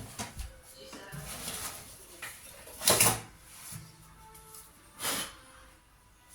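Knocks, clicks and scrapes of desktop computer parts being handled, with two louder knocks about three and five seconds in.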